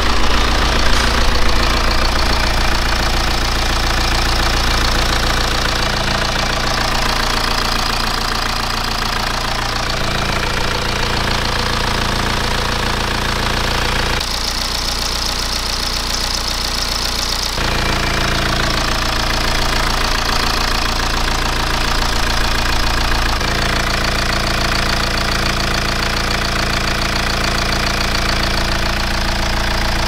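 BMW N47D20 four-cylinder diesel idling, in several clips cut together. About fourteen seconds in, a three-second clip runs with the failed crankshaft pulley still fitted, the source of the engine noise. The rest runs with a new pulley, and there the noise is gone.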